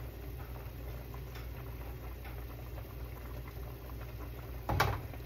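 Beef simmering in a big stainless steel stock pot: scattered small bubbling pops over a steady low hum. Near the end there is a single loud knock as a hand takes hold of the pot.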